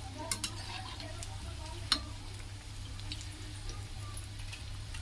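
Potato cutlets deep-frying in hot oil in a kadhai, a steady sizzle, with a few clicks of the metal slotted spoon against the pan as they are turned; the sharpest click comes about two seconds in.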